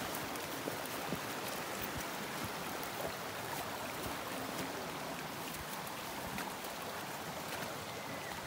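Creek running after rain: a steady rush of flowing water, with a few faint clicks.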